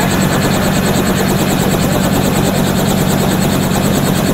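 Robinson R44 helicopter running on the ground before takeoff: its piston engine and turning rotor make a steady, loud drone with a fast, even pulsing beat from the blades.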